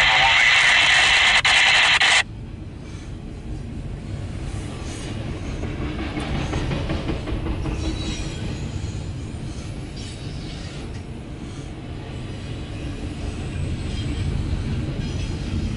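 Loud radio static hisses for about two seconds and cuts off suddenly. After that, a double-stack intermodal freight train rolls past with a steady low rumble of wheels on rail, heard from inside a car.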